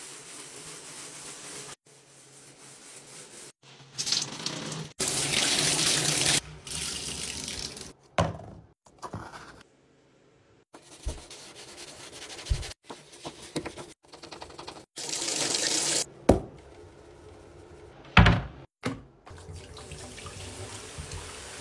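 Tap water running and splashing into a bathtub, in short stretches that cut off abruptly, with sponge scrubbing on the tub surface and a few sharp knocks.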